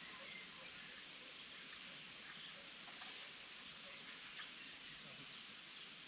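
Faint woodland ambience: scattered short bird chirps over a steady, high, pulsing cricket trill and an even hiss.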